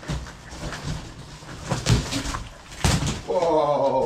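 A bread knife sawing and tearing through a large cardboard box, with sharp knocks and thumps as the box is shifted. Near the end, a drawn-out, slightly falling voice-like sound starts.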